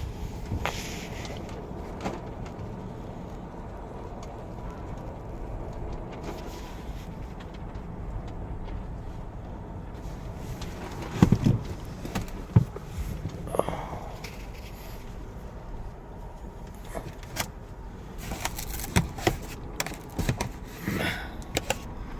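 Steady background noise with scattered knocks and clicks, the loudest two about eleven and twelve and a half seconds in and a cluster near the end.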